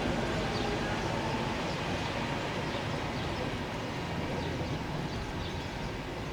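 Passenger train running by on the line: a steady rumble and rush of wheels on rail that slowly fades.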